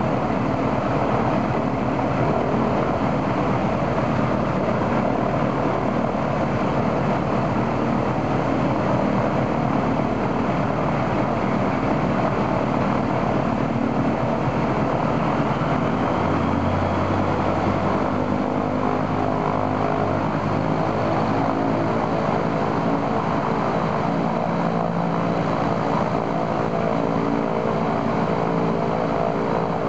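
Il-14's right engine, a Shvetsov ASh-82T radial, running at a steady ground run-up with the propeller turning, after its oil cooler was replaced. Its note shifts about halfway through as the engine speed changes.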